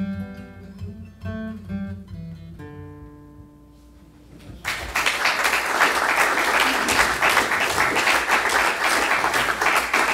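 Solo acoustic guitar picking the closing notes of a ballad, with a last chord ringing out and fading. About halfway through, a small audience breaks into applause, which goes on steadily to the end.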